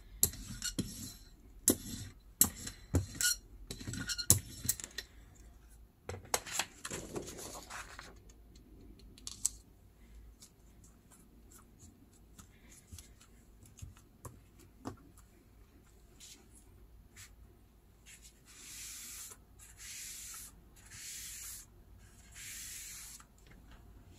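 Light knocks and clicks of tools being handled on a craft mat, then a sheet of paper rubbed down by hand onto an inked silicone mat: four soft, hissy rubbing strokes of about a second each near the end.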